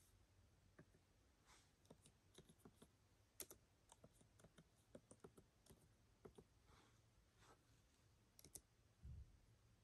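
Faint, irregular key clicks of the 14-inch M1 Pro MacBook Pro's keyboard as a password and account details are typed in, with a low thump near the end.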